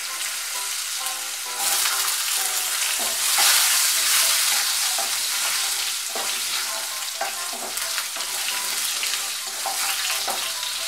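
Potato chunks frying in hot mustard oil in a kadai, sizzling steadily, with a spatula stirring and scraping against the pan.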